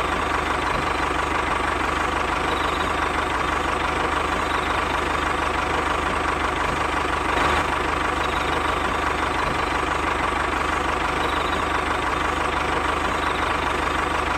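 Tractor engine idling steadily, with a brief rise in level about seven and a half seconds in.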